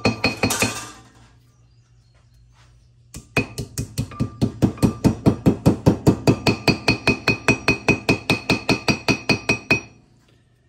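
Claw hammer tapping small metal grease caps into the hubs of disc brake rotors: quick, light taps about five a second, with the metal ringing after each one. A short run of taps stops about a second in, and after a pause a long, even run starts about three seconds in and goes on until near the end.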